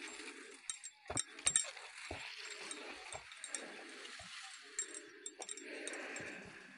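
Footsteps on a dirt trail and tall grass rustling against walkers pushing through it, with scattered light clicks and crackles.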